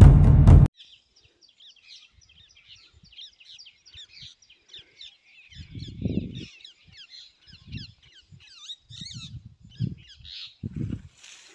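Many small birds chirping and twittering in quick, overlapping calls, with low thumps on the microphone now and then. Loud intro music with drum hits cuts off abruptly under a second in.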